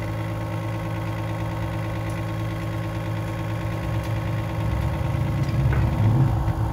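A steady engine drone, like a motor idling, that grows louder and rougher about five seconds in.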